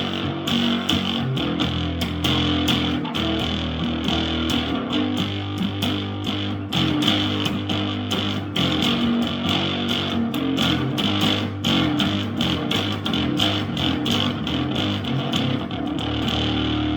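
Electric bass guitar played freestyle as noise rather than music: sustained low notes under rapid scratchy picked or strummed attacks, several a second, with a steady hiss on top. Near the end the attacks stop and a low note rings on.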